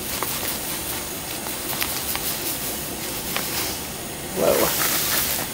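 Chicken broth heating toward the boil in a stainless steel pot on a gas burner, a steady hiss, with small ticks of dry polenta being poured from its bag into a plastic measuring cup. Near the end there is a louder rush as some of the cornmeal spills.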